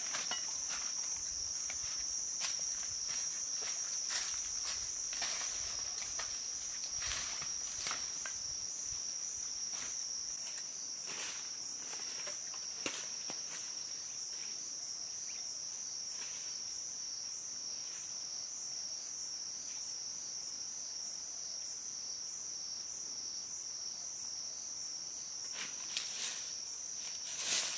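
A steady, high-pitched chorus of insects. It is joined by scattered crunches and rustles of footsteps in dry leaf litter, a few at the start and a cluster near the end.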